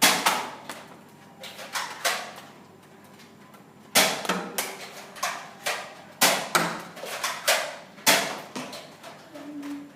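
Nerf foam-dart blasters firing in a dart fight: a series of sharp clacks, a few at first, then a quicker run of about nine, roughly two a second.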